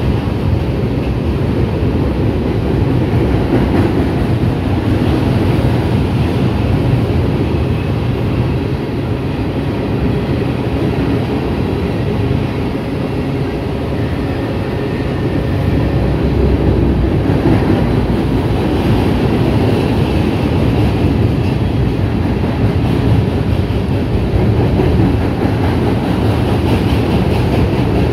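Freight cars (covered hoppers, tank cars and boxcars) rolling across a steel girder railroad bridge: a steady rumble of wheels on rail that holds without a break.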